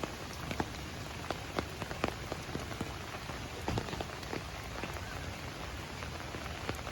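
Steady rain falling, with many individual raindrops pattering close by in sharp irregular ticks over an even hiss.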